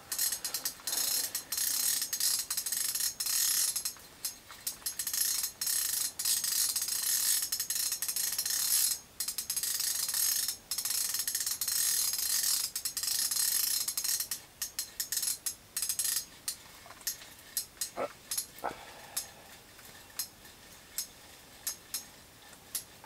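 Ice-fishing reel being cranked to bring a hooked burbot up through the hole, a rapid ratcheting clicking for most of the first half. Past the middle the clicks thin out to separate, slower ticks as the reeling slows.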